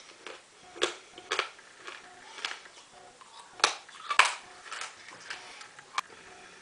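A person crunching hard mints in the mouth: irregular sharp crunches, roughly a second apart.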